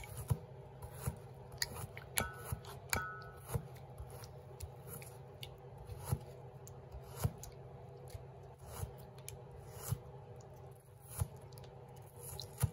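Chef's knife mincing an onion on a cutting board: irregular sharp taps of the blade hitting the board, roughly one a second, over a steady low hum.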